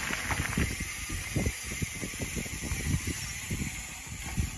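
Irregular low rumbling and bumping on a moving handheld phone microphone, wind buffeting and handling knocks, over a steady high hiss.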